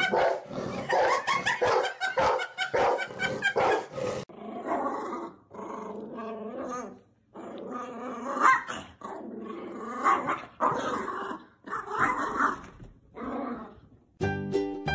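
Dogs growling and barking: first in a dense rapid run, then in separate bursts about once a second. Music starts just before the end.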